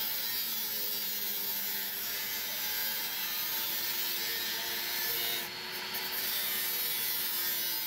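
Steady, harsh rasping noise with no rhythm, from a tool working the red roofing sheets being laid out on the gravel, briefly dipping about five and a half seconds in.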